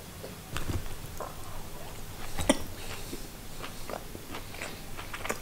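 A man biting and chewing a slice of cervelat sausage: soft, irregular mouth clicks and smacks, with one sharper click about two and a half seconds in.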